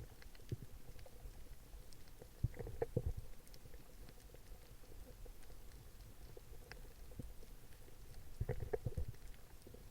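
Muffled underwater noise picked up by a submerged camera: a low rumble of water movement with scattered sharp clicks, and two clusters of knocks, about three seconds in and again near the end.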